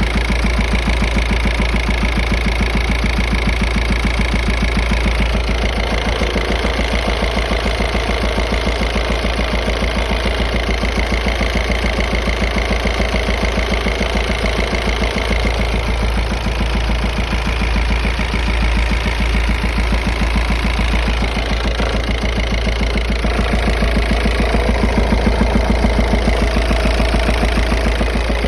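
Volkswagen 1.9 TDI (AVF) four-cylinder pumpe-düse diesel idling with a steady, rhythmic knock coming from the turbocharger area.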